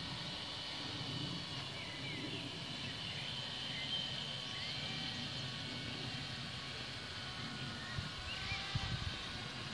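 Outdoor ambience: a steady low rumble with faint, short bird chirps scattered through it, and a couple of low thumps near the end.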